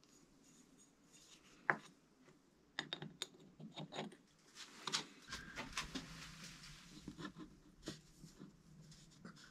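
Light clicks and knocks of metal parts being handled on a wooden board: a new deep-groove ball bearing seated in a Rohloff Speedhub's aluminium hub cap and a machined aluminium installation tool set on top of it. One sharp click early on, a busy cluster of small knocks in the middle, and a faint low hum comes in about halfway through.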